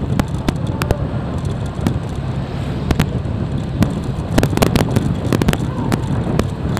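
Firecrackers popping in quick, irregular cracks, thickest from about four and a half to five and a half seconds in, over the steady low rumble of a motorbike riding along.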